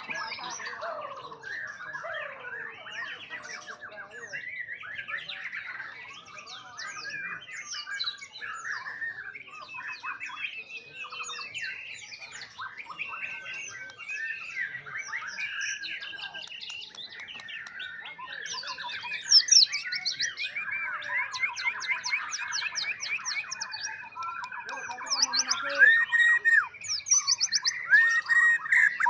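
Several white-rumped shamas singing at once: a dense, overlapping tangle of whistles, trills and rapid chattering phrases, which grows louder and busier in the last few seconds.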